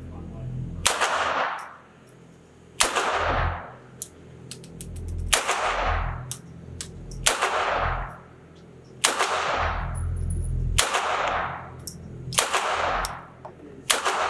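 Beretta U22 Neos .22 LR semi-automatic pistol firing CCI standard-velocity rounds, eight single shots about every two seconds. The pistol cycles each round. Each shot rings out in the echo of an indoor concrete range.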